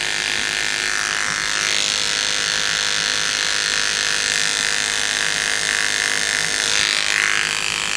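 Electric hair clippers buzzing steadily as their blades clip a sugar glider's fur, preparing the skin around a wound for stitching.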